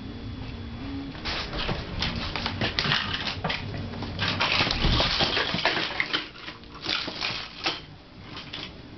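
A baby rummaging in a box of plastic toys: toys clattering and rustling against each other in a run of small clicks and knocks, busiest about halfway through.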